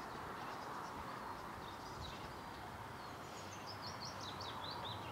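A songbird singing a phrase of short notes that step down in pitch, starting about two-thirds of the way in, with a few faint chirps before it, over a steady outdoor background hiss.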